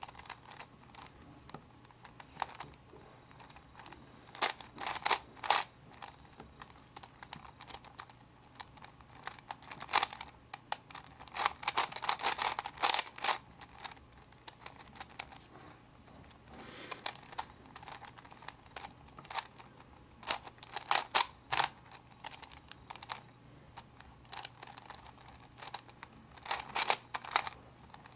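Plastic layers of a 4x4 Rubik's Cube being turned by hand, clicking and clacking in quick bursts of several turns, with short pauses between the bursts.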